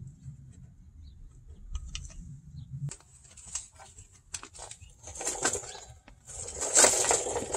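Clicks, knocks and bursts of scraping as a manual transmission is handled on a floor jack on gritty asphalt, after a low rumble in the first three seconds. The loudest scraping comes about five seconds in and again near the end.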